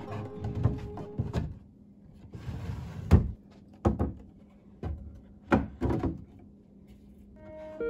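Wooden dresser drawers being pulled out and pushed back in: a short scraping slide, then several wooden knocks as the drawers are handled and seated. Background music fades out in the first second or so.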